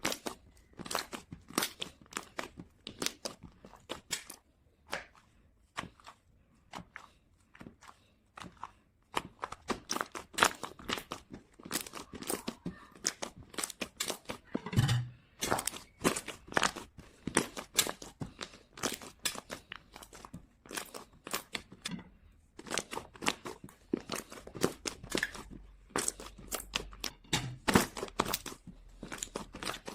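Slime being pressed and kneaded by hand, making an irregular run of crisp crackles and clicking pops.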